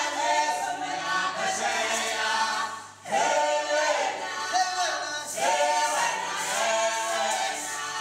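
A group of voices singing a cappella in traditional Xhosa style, the sound of a dance troupe's song. The singing breaks off briefly about three seconds in, then resumes.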